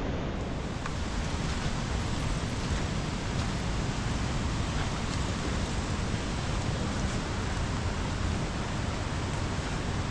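Heavy rain falling steadily, an even hiss with a few faint drop ticks.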